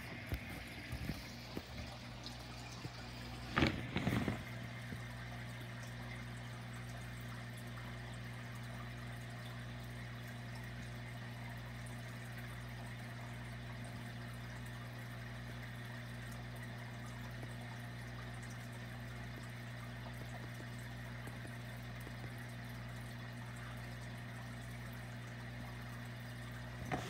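Aquarium equipment running: a steady low hum, as of an electric air pump, under a constant trickle and bubbling of water. A brief knock about four seconds in.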